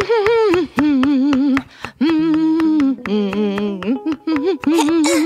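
A woman's voice humming a cheerful tune in held, wavering notes, with quick knife chops on a cutting board underneath.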